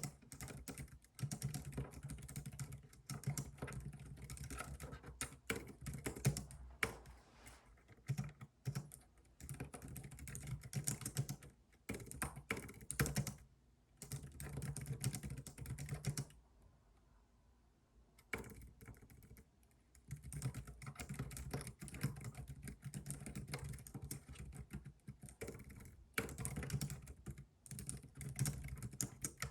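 Computer keyboard typing: runs of rapid keystrokes broken by short pauses, the longest about two seconds a little past halfway.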